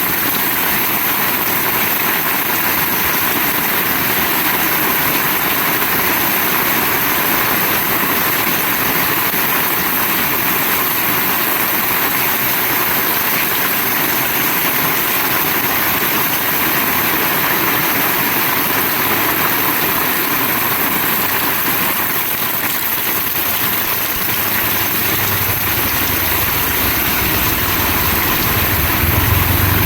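Heavy rain falling steadily. A low rumble comes in about five seconds before the end and grows louder.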